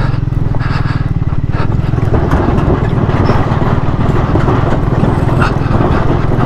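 Triumph Speed 400 single-cylinder engine running at low speed as the motorcycle rolls over the wooden plank deck of a steel truss bridge, with scattered knocks and clatter from the planks under the tyres.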